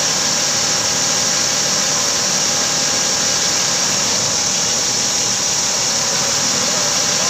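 A 50-ton truck crane's diesel engine running steadily while the crane holds a load, with a steady whine over the engine noise.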